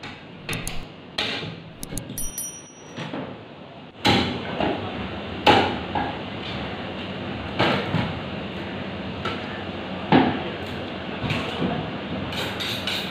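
Meat cleavers chopping goat meat on wooden log chopping blocks: irregular heavy chops, several butchers working at once.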